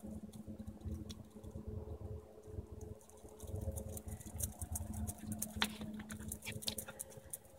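Pembroke Welsh Corgi's claws clicking and paws pattering on a concrete patio as he gallops: a quick run of light ticks that grows denser about halfway through.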